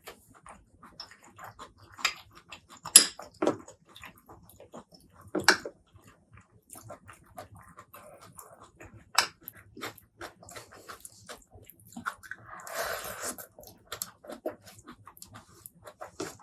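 Close-miked eating sounds: wet chewing and mouth clicks, with a few sharp crunching snaps and a longer noisy stretch about thirteen seconds in.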